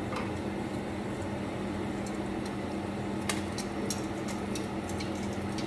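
Spam frying in a lidded pan on a gas stove under a steady mechanical hum, with a handful of sharp spattering pops in the second half.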